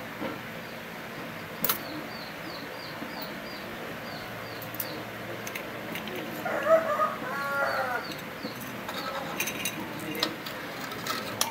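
A chicken calls loudly about halfway through, over a steady series of high chirps from a small bird. Now and then the motorcycle's roller drive chain clinks as it is worked off the sprockets by hand.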